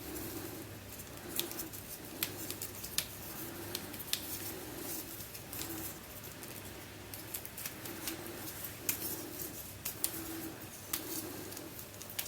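Plastic segments of a 36-piece Danshang heart-shaped magic snake puzzle clicking and rattling irregularly as they are twisted and handled.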